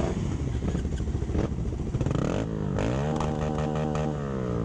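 Motorcycle engines idling, with one revved up about two and a half seconds in, held for about a second, then let back down.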